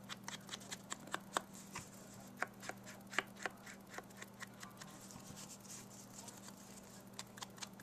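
Foam finger dauber dabbing ink onto the edges of a die-cut cardstock shape: a run of light, irregular taps.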